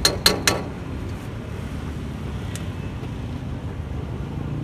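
Metal ladle clanking against a steel wok three times in quick succession, over a steady low rumble of street traffic.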